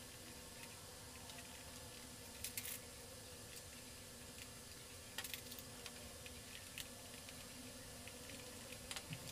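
A few faint, brief clicks and scrapes of a small screwdriver working the screw of a plastic toy robot's battery cover, over a steady low hum.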